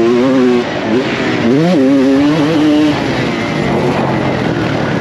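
Honda CR250R two-stroke single-cylinder motocross engine revving hard, its pitch climbing and dropping as the throttle opens and shuts, heard close up from on board the bike. The revs fall away briefly under a second in, climb again, and ease off about three seconds in.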